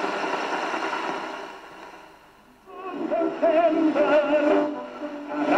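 Siemens 52 W neutrodyne tube radio from 1930 being tuned through its loudspeaker: a blurred station sound fades away, then a little under three seconds in a broadcast of music with singing comes in.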